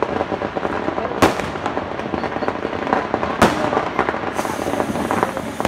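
Firecrackers going off all around, a steady crackle with two sharp bangs, about a second in and just past halfway. In the second half a firecracker fuse hisses as it burns and sparks.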